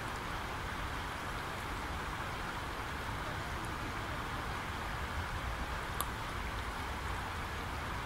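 Flowing water rippling and lapping among shoreline stones, a steady even rush with a low rumble underneath. One small sharp click about six seconds in.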